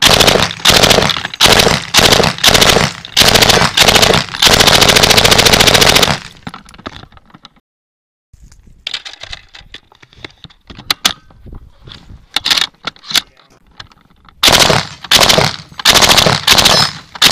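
Bursts of fully automatic assault-rifle fire, ending in one long burst of about two seconds. After a brief dead gap there are only a few fainter sharp cracks, then, near the end, short bursts of belt-fed machine-gun fire.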